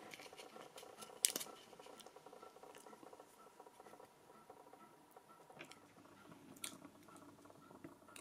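Faint handling of a thin clear acrylic sheet in the fingers: light rubbing with a few small sharp clicks, the sharpest about a second in.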